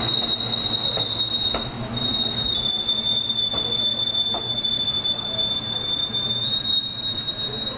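Kintetsu 80000 series 'Hinotori' train's wheels squealing as it moves slowly along the station track: a high, steady squeal over a low rumble, with a few faint clicks. The squeal stops at the very end.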